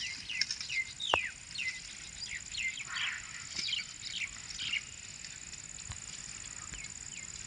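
Birds chirping in a quick series of short, falling calls that die away about five seconds in, over a steady thin high-pitched tone.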